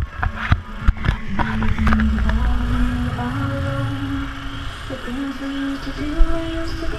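Music from a float's loudspeakers: long held notes that step slowly upward, over a low rumble. Several knocks and bumps come in the first two seconds.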